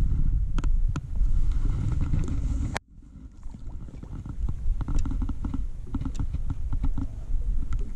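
Wind buffeting the body-worn camera's microphone as a low rumble, with scattered clicks and light knocks of clothing and hands moving against the camera. The sound breaks off sharply about three seconds in, then the rumble and clicks return more faintly.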